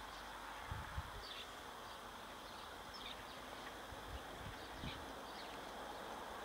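Quiet outdoor ambience with a few faint, scattered bird chirps and occasional low rumbles.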